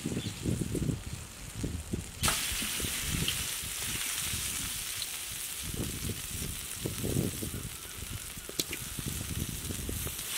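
Oil sizzling steadily in a wide aluminium tray over a wood fire as boiled manioc (cassava) pieces and mustard seeds fry. The sizzle comes in suddenly about two seconds in, with a couple of faint clicks, over low irregular rumbling.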